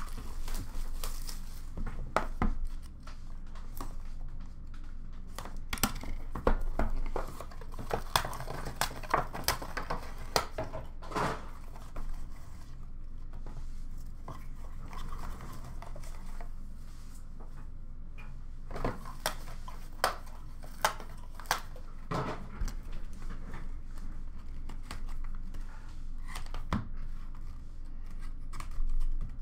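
Cardboard trading-card boxes being unwrapped and handled: wrapping tearing and crinkling, with many scattered clicks and knocks as the boxes are picked up, opened and set down.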